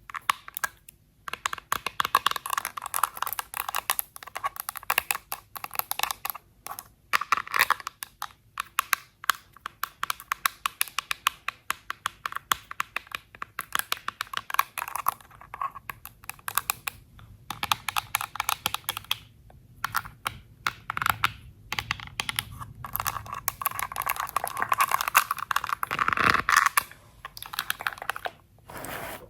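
Quick runs of close-up fingernail-like tapping and scratching on makeup products and their packaging, in rapid clicks broken by short pauses; about 26 seconds in, a fuller, louder stretch of rubbing.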